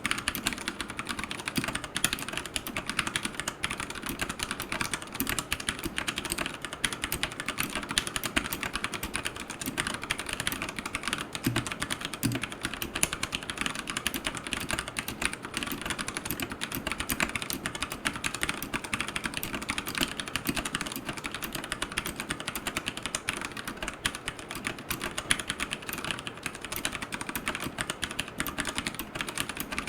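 Steady, fast typing on a Royal Kludge RK100 mechanical keyboard with brown tactile switches and AKKO clear keycaps: a continuous stream of key clacks.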